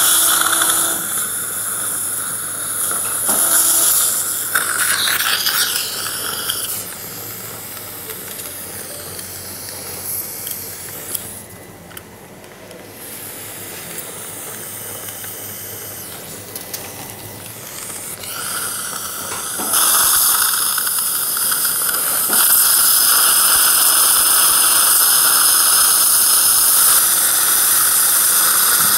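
Surgical suction hissing steadily, with the whine of an implant drill handpiece running through a guide sleeve. The drill whine is heard at the start, drops away, and returns about twenty seconds in, making the last part the loudest.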